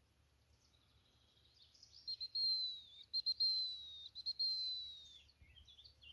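Gundog training whistle: a few quick short pips and then long held notes, the last one sagging slightly in pitch, a whistle signal to the retrieving dog. Small bird chirps follow near the end.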